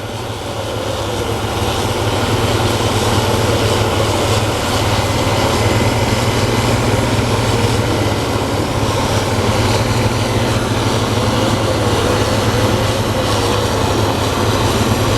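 Case IH Axial-Flow combine's diesel engine and threshing machinery running at harvest speed, a steady heavy drone that grows louder over the first two seconds and then holds.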